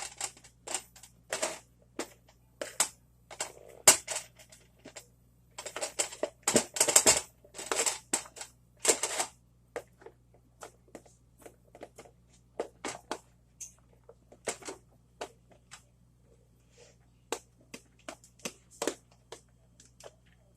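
Irregular clicks, taps and rustles of cooked chicken being handled and measured out with kitchen utensils and containers, busiest a third of the way in and thinning out later.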